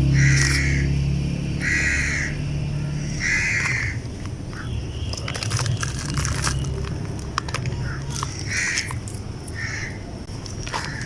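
Damp chunks crumbling and breaking apart, with a run of sharp crackles and small snaps in the middle. A bird calls repeatedly in the background, and a low music bed fades out in the first few seconds.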